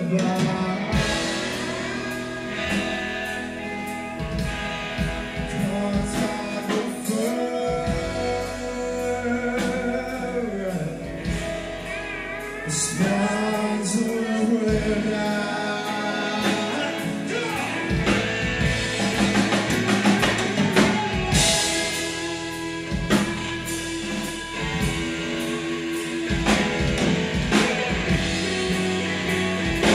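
Live rock band: sung lead vocals over acoustic guitar, electric bass and drums.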